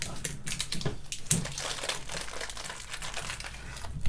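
Plastic packaging crinkling and rustling as it is handled, in quick irregular crackles.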